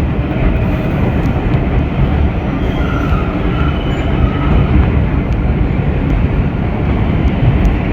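Vintage IRT Low-Voltage subway cars running underway in a tunnel: a loud, steady rumble of wheels on rail and running gear, with a faint high tone briefly about three seconds in.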